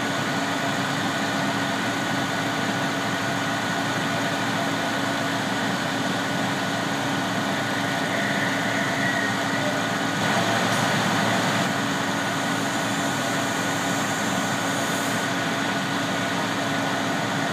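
Steady drone of a fire engine running at the scene, its pump supplying the charged hose lines, with a few constant tones in it.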